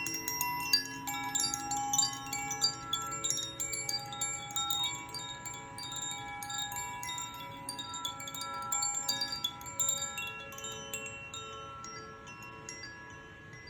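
Zaphir chime ringing: many overlapping tones with bright high tinkles, dying away over the last few seconds.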